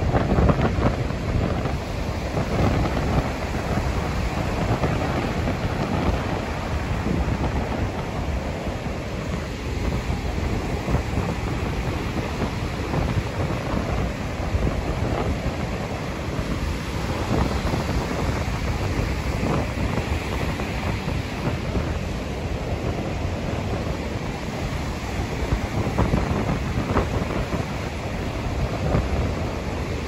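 Rough surf breaking and washing onto a sandy beach, a continuous rushing that swells and eases, with wind buffeting the microphone and adding a low rumble.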